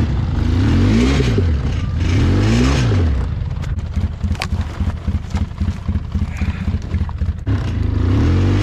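ATV engine revving up and easing off twice in quick succession, running lower and steadier for a few seconds, then revving again near the end. A single sharp click near the middle.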